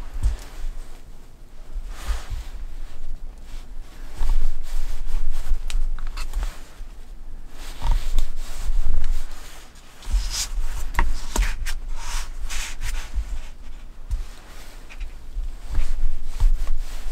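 A kitchen knife sawing through a thick slice of soft white bread on a wooden cutting board: irregular rasping strokes through the crust and crumb, with a few sharp taps of the blade on the board about ten to twelve seconds in.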